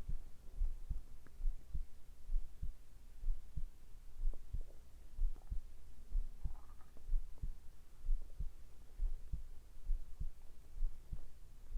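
Steady heartbeat pulse heard through the abdomen, a low thud about every two-thirds of a second, with a faint brief stomach gurgle about six and a half seconds in.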